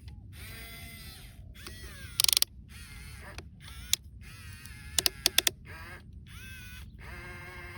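Toy excavator's small geared motors whining in short runs that rise and fall in pitch, broken by brief gaps. There is a quick burst of clicks a little over two seconds in, and another string of clicks about five seconds in.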